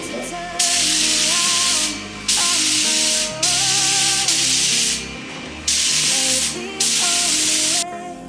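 Paint spray gun hissing in five passes of about a second each, starting and stopping abruptly, as base coat is sprayed onto a car bumper. Music plays underneath.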